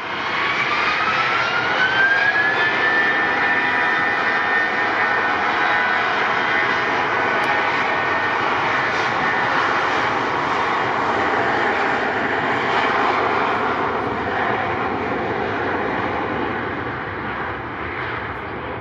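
Airbus A320-200 jet engines on the takeoff roll: a whine that rises in pitch over the first few seconds as the engines spool up, then a steady loud roar that eases slightly near the end as the aircraft moves away.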